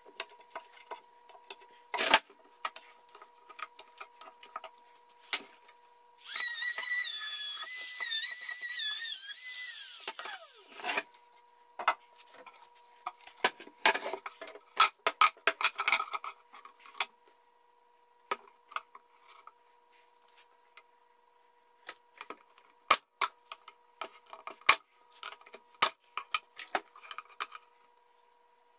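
Wooden hive-cover parts knocked and handled on a workbench, with scattered taps and clicks and a sharp knock about two seconds in. About six seconds in, a small power tool runs with a high, wavering whine for about four seconds, then spins down.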